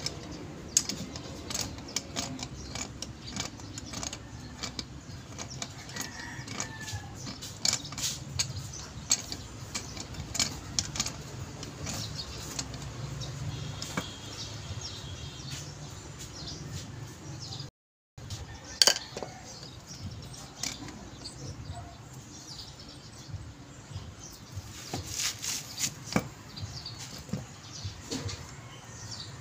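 Irregular clicks and clinks of steel hand tools and parts against a steering box housing as it is taken apart, with birds chirping faintly in the background.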